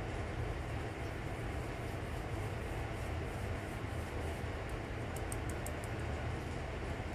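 Steady low rumbling background noise with a faint hiss, like a fan or air-conditioner hum, and a few faint light ticks about five seconds in.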